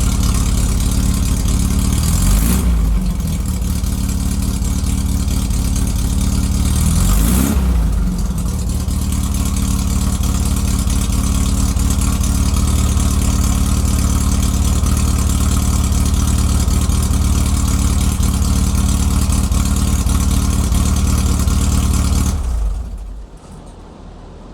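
1969 Karmann Ghia's air-cooled flat-four engine idling steadily on freshly adjusted valves. It is blipped twice, about two and seven seconds in, and then switched off near the end.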